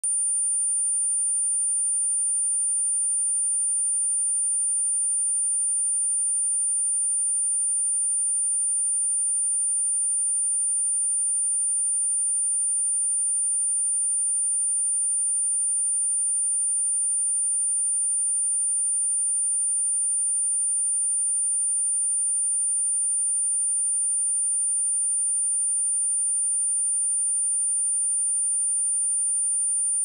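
A pure 9228 Hz sine-wave test tone: one steady, unbroken high-pitched whistle held at constant level.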